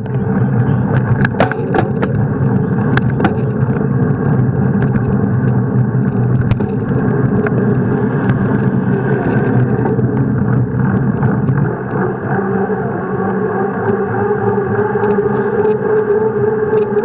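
Bicycle ridden at speed on paved streets: a steady hum of tyres and wind on the bike-mounted camera, with a few sharp clicks and knocks in the first few seconds.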